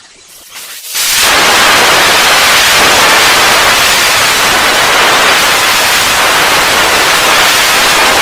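Loud, steady static hiss, like white noise, cutting in about a second in and holding level throughout.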